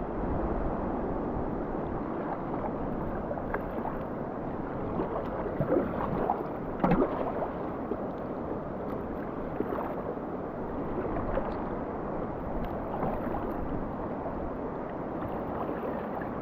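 Whitewater river rushing steadily around a kayak, with a few short, louder splashes midway.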